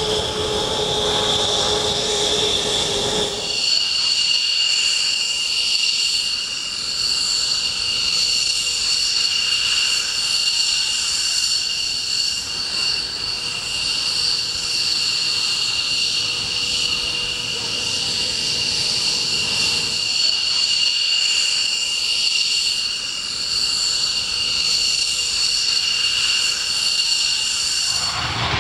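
McDonnell Douglas F-15 Eagle's twin Pratt & Whitney F100 turbofan engines running at ground idle, a steady high-pitched whine made of several tones. For the first three seconds or so, a lower hum and a slightly rising whine sit under it.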